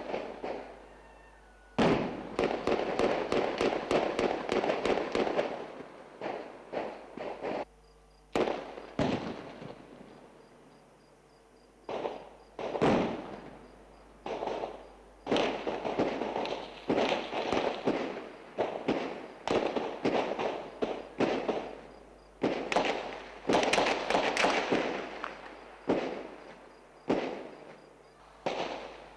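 Heavy gunfire: bursts of rapid shots, with single shots between, each ringing out in an echo. The longest bursts come a couple of seconds in and again through the second half, with a short lull between.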